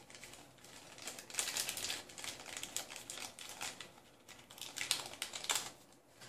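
Small plastic parts bag crinkling in the hands with irregular light clicks as the metal heatbed springs are taken out of it; loudest about a second and a half in and again near the five-second mark.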